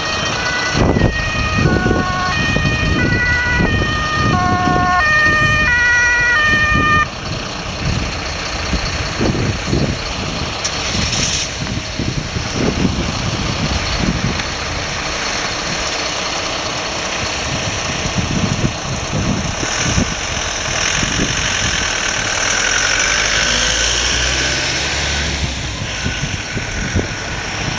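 Wind buffeting the microphone over the running of vehicles at a roadside accident scene. For the first seven seconds there is a run of short electronic beeps that jump between several pitches.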